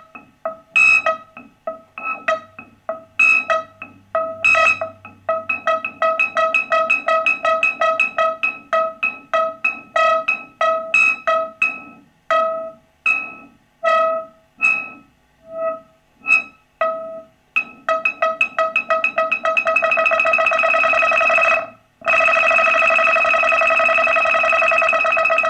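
Behringer MonoPoly analog synthesizer sounding a short note over and over at one pitch. The repeats come sometimes sparse and sometimes fast, and from about 18 s in they run together into a rapid pulsing tone, cut by a brief gap about 22 s in.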